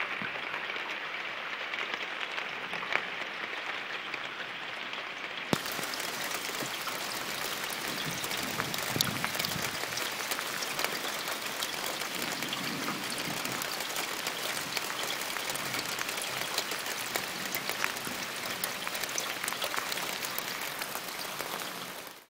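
Steady rain falling on a leaf-guarded rain gutter and roof edge, with many close drops ticking one by one over the hiss. About five seconds in the sound turns brighter and hissier.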